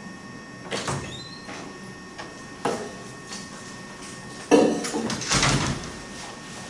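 A few short scrapes and knocks in a room, the loudest and longest about four and a half seconds in, over a faint steady hum.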